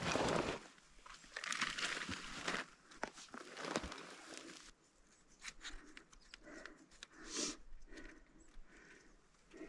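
Rustling and crinkling of a nylon backpack and synthetic hunting clothing as gear is unpacked by hand, loudest in the first few seconds, then quieter scattered clicks and scrapes.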